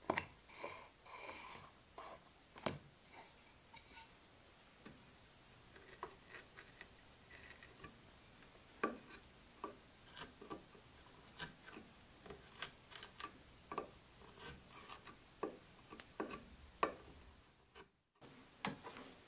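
A hand carving chisel paring small chips from a wooden dovetail joint: irregular sharp clicks and snaps of the edge cutting the wood, about one or two a second. A few softer rubs come near the start, and the sound drops out briefly near the end.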